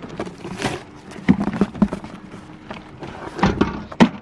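Sheet aluminum trim coil being handled and pulled about, with irregular knocks, rattles and scrapes of thin metal; the loudest knocks come near the end.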